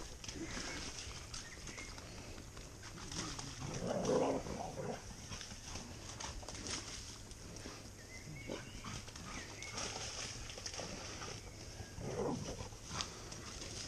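Labrador dogs playing in a muddy stream, splashing and scrambling through the water and mud, with a dog's voice sounding about four seconds in and again near twelve seconds.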